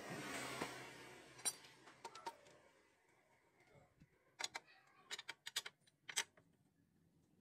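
Light metallic clicks and clinks of a steel T-handle socket wrench on the bolts of a scooter's CVT clutch cover as they are tightened: a soft rustle at first, then a scatter of short sharp ticks in the second half.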